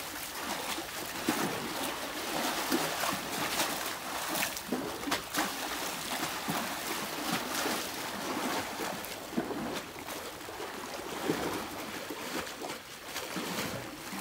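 Seawater lapping and sloshing against concrete harbour steps and a seawall, with frequent small, irregular splashes.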